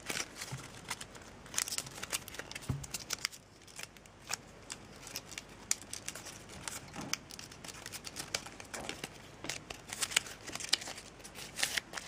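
A folded sheet of origami paper crinkling and crackling as it is creased and pressed by hand, in irregular small clicks and rustles.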